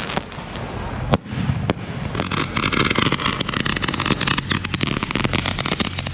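Consumer fireworks going off: a whistle falling slightly in pitch, two sharp bangs about a second in, then a long run of dense, rapid crackling.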